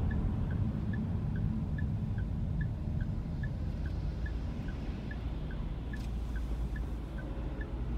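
A car's turn-signal indicator ticking in the cabin, an even tick-tock of about two and a half clicks a second, over the low rumble of the engine and road. A single sharp click comes about six seconds in.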